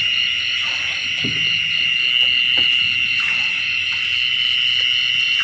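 Night insect chorus of crickets: a steady, high-pitched drone, with a second insect calling in even pulses several times a second above it. A few faint knocks and rustles come through underneath.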